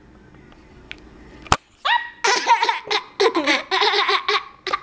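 Toddler girl laughing hard in quick, high-pitched bursts, beginning about two seconds in, just after a single sharp click.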